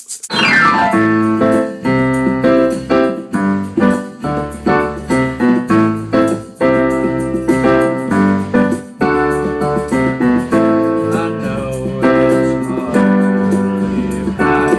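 Piano sound from a digital keyboard, played two-handed in full chords over a bass line. It opens with a quick downward run.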